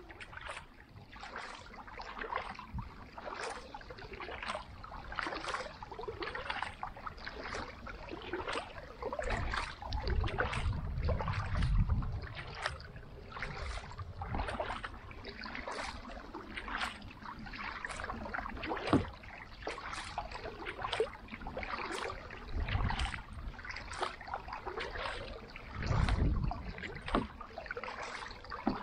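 Carbon kayak paddle dipping and pulling through lake water in a steady rhythm of splashes and drips, alternating side to side. Now and then a low rumble of wind buffets the microphone.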